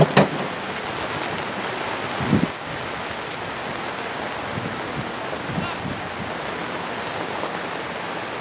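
Steady hiss of rain falling. There is a sharp click at the start and a dull thump a little after two seconds.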